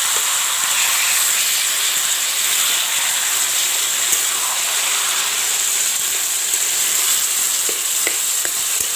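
Chopped taro greens and stems sizzling steadily in a hot pan with hilsa fish heads and spices, a continuous hiss. A few light ticks near the end.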